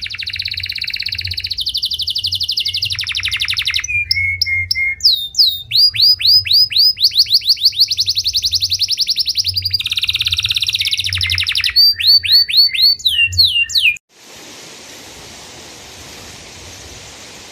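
A songbird singing loudly in fast trills and runs of repeated sweeping whistled notes, which cut off abruptly near the end and give way to the steady rush of a waterfall.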